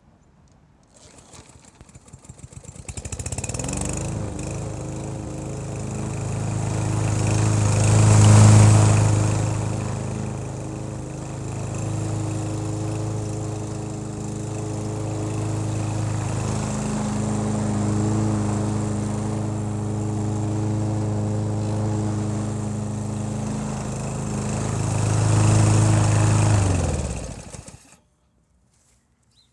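Troy-Bilt 140cc walk-behind lawn mower engine starting about three seconds in, rising to a steady run with two louder swells, then winding down and stopping near the end.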